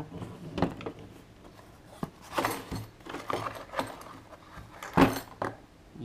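Irregular metallic clicks and clatter as an HPC lever handle remover tool is fitted by hand onto a lever lockset, with one sharper knock about five seconds in.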